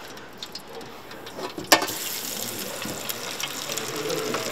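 Goose breast strips sizzling and bubbling in hot oil in an electric deep fryer at about 360°F, a steady hiss. A sharp click comes nearly two seconds in, and the sizzling is louder after it.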